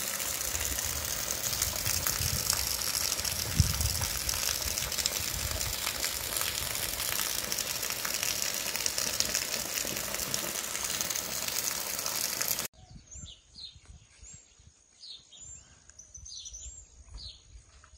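Heavy rain falling on a town street and rooftops, a steady loud hiss. About thirteen seconds in it cuts off abruptly to a much quieter outdoor scene where birds give a string of short falling chirps.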